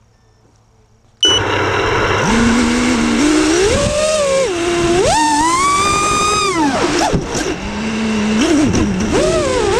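Quadcopter drone's electric motors and propellers spinning up suddenly about a second in, then a loud buzzing whine that rises and falls in pitch again and again with the throttle during takeoff and climb.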